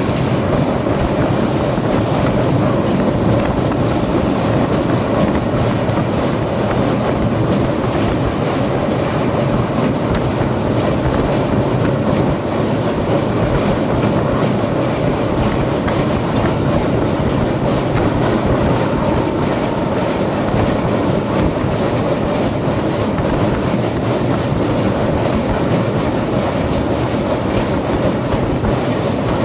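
Train running at a steady speed, its wheels and carriages making a continuous loud noise on the track.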